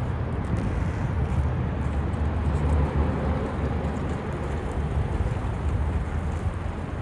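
2018 Ford Mustang's engine running steadily at low revs as the car rolls slowly across the lot, a low even rumble with no revving.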